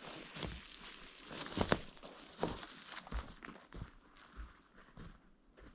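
Footsteps crunching in snow, irregular and growing fainter.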